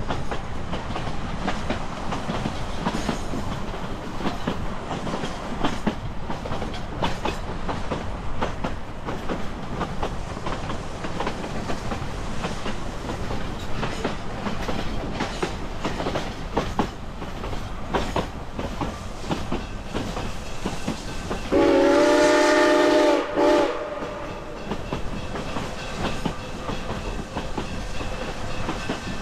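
Narrow-gauge passenger coach rolling along the rails with a steady rumble and irregular wheel clicks. About two-thirds of the way through, the steam locomotive blows its whistle: one loud chord-like blast of about a second and a half, then a short toot.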